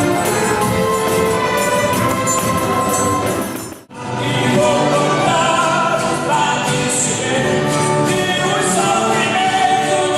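Live concert music from an ensemble with singing voices. It breaks off abruptly about four seconds in and then resumes with a different passage.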